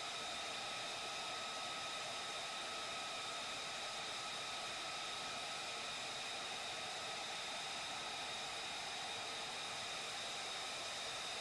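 F-35A Lightning II running on the ground: a steady whine of several high tones over an even hiss, holding constant without spooling up or down.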